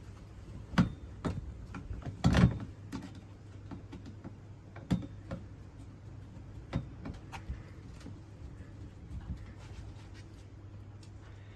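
Scattered clicks and knocks of caravan roof hatch parts being handled and fitted back into place. The loudest knocks come as a cluster about two seconds in, with single clicks spread through the rest.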